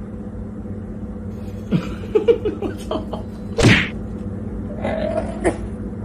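Short rustles and light taps, then one sharp thud a little past halfway, from a cat moving about against a clear plastic sheet, over a steady low hum.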